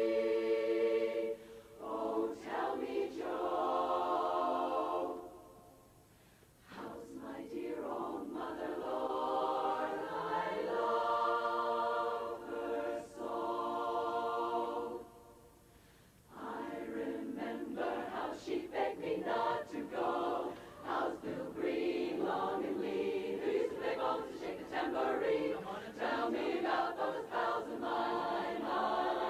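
Women's barbershop chorus singing a cappella in close four-part harmony, with sustained chords. The singing breaks off briefly twice, about six seconds in and again about fifteen seconds in.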